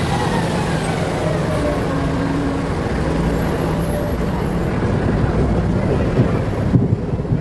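Traffic noise on a wet city street: a heavy diesel truck drives past amid the steady rumble of passing vehicles.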